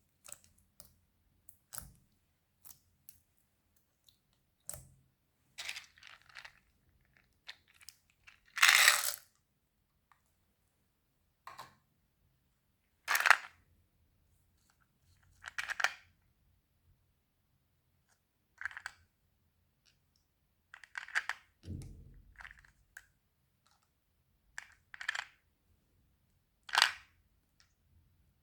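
Slime being handled, giving about a dozen separate wet squishes, pops and crackles with short pauses between them. The loudest comes about nine seconds in.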